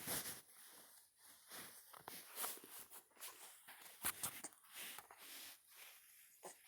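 Baby hiccuping: short, sudden hiccups, one about four seconds in and another near the end, over soft breathing and rustling.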